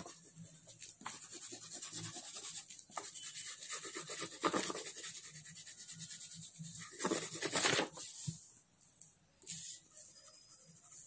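Crayon scratching on drawing paper in quick back-and-forth colouring strokes, with a few louder swishes of the paper.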